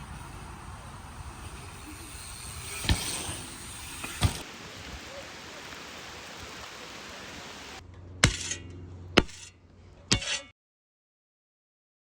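A handful of sharp knocks or clinks, five in all and irregularly spaced, over a steady background noise; the sound then cuts off abruptly.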